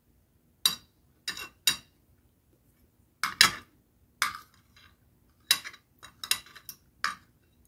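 Metal spoon and fork clinking and scraping against a plate while eating: a dozen or so sharp clinks at irregular intervals, starting under a second in.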